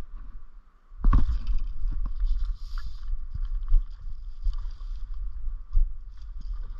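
Wind buffeting the microphone in a gusty low rumble over the hiss of river water, starting about a second in, with a few scattered clicks and knocks.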